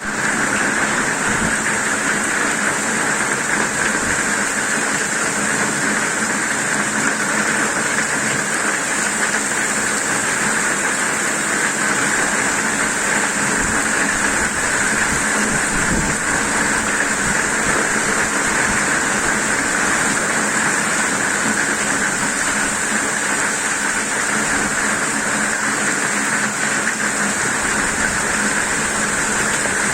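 Heavy rain pouring down steadily in a violent thunderstorm.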